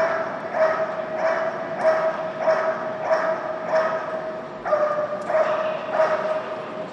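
A dog barking in a steady rhythm, about one and a half barks a second, with a continuous high-pitched whine running between the barks.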